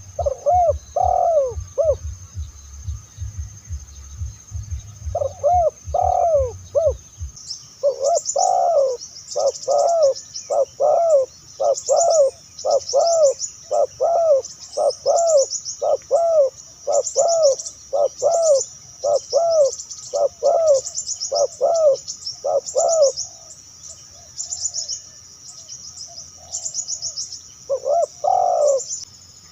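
Spotted doves (tekukur) cooing in repeated phrases of low, arching coos, with a long unbroken run of them from about eight seconds in, a pause, and the cooing starting again near the end. A high, rapid chirping trill goes on behind them.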